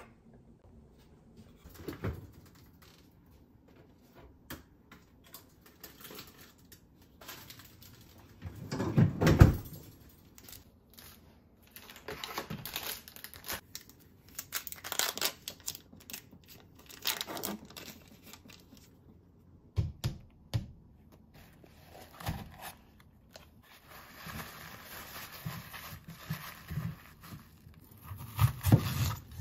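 Kitchen handling sounds: a paper packet torn open and handled over a glass bowl, with scattered clicks and knocks, the loudest about nine seconds in. Later, kitchen paper rustles and crinkles as it is wrapped in the bowl.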